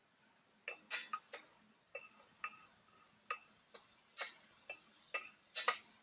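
Metal utensil clinking against a cooking pot while stirring. The light, irregular strikes come about two a second, each with a short ring, starting about a second in.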